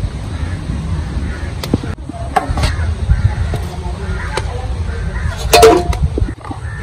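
Faint voices over a steady low rumble, with a few sharp knocks and a louder, briefer sound about five and a half seconds in.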